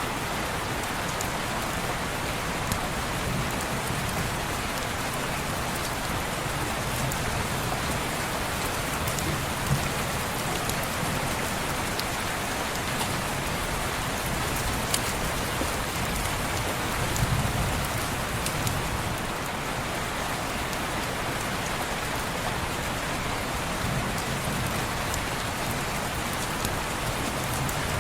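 Steady rain falling on a window, an even hiss with scattered sharp ticks of single drops. A soft low rumble swells up a few times.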